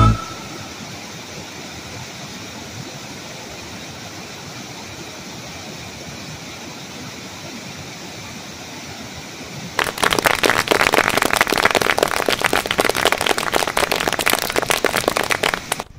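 Small waterfall rushing over rocks as a steady hiss of water. About ten seconds in it becomes much louder and rougher, with a fluttering, uneven rush.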